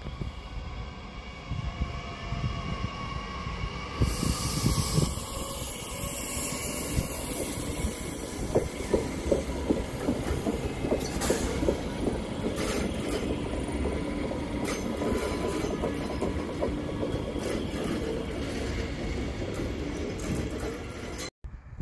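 Train moving on the rails, with a burst of high wheel squeal about four seconds in, followed by a run of knocks as the wheels pass over rail joints.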